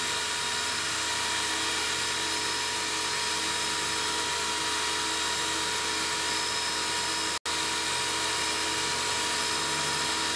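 Milling machine spindle running steadily with a small end mill cutting a 3 mm keyway in aluminium, a steady high whine with hiss. The sound drops out for an instant about seven seconds in.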